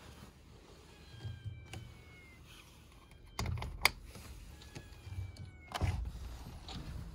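Bumps and rubbing from a handheld phone against a window frame, with a sharp click about four seconds in. Faint, high, drawn-out mews from a stray kitten fall slightly in pitch, once about a second in and again about five seconds in.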